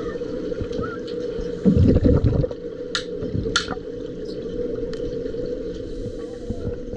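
Underwater sound in a swimming pool: a steady low hum under gurgling scuba divers' exhaled bubbles, with a loud rush of bubbles about two seconds in and sharp clicks twice around three seconds in.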